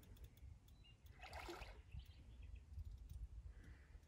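Near silence: a low rumble, with a brief soft rush a little over a second in.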